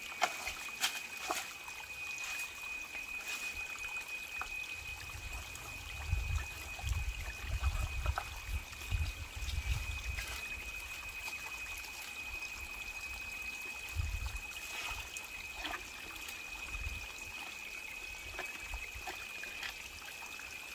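Water trickling among rocks, with scattered clicks of stones being shifted by hand and a thin, steady high-pitched whine.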